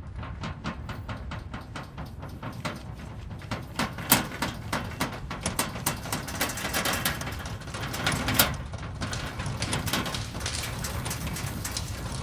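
Earthquake rumbling sound effect: a continuous low rumble under a dense stream of rapid knocks and rattles, with two louder sharp cracks about four and eight seconds in.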